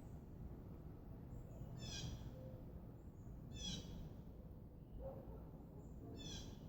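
A small bird singing faintly: a short run of high notes falling in pitch, three times about two seconds apart, over a low steady background rumble.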